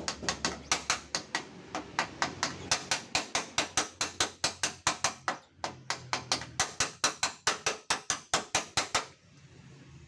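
A hammer tapping rapidly on a car's front fender panel, about four even strikes a second with a short break midway, to knock out a dent. The hammering stops near the end.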